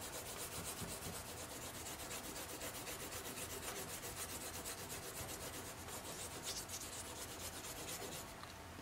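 Fingers rubbing quickly back and forth over the back of a paper sketch pressed onto a lino block, a steady rhythmic rubbing that transfers the pencil graphite onto the block. The rubbing eases off near the end.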